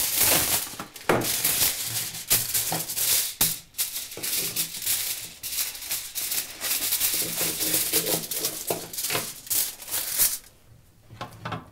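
Aluminium foil being handled and crumpled into packets, crinkling and rustling in quick bursts that stop about ten seconds in.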